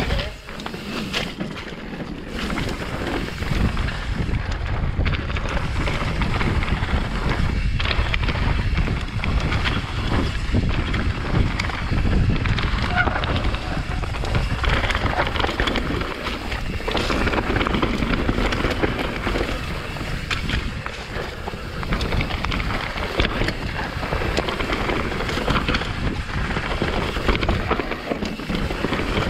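Wind buffeting a helmet-mounted GoPro's microphone as a mountain bike descends a rough trail, with a steady stream of rattles and knocks from the bike and its tyres over roots and rocks.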